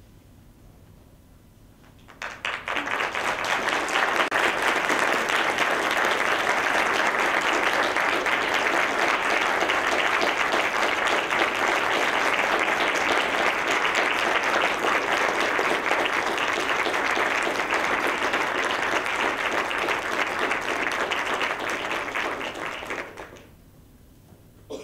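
Audience applauding at the end of a stage performance. The clapping rises about two seconds in, holds steady for about twenty seconds, and dies away near the end.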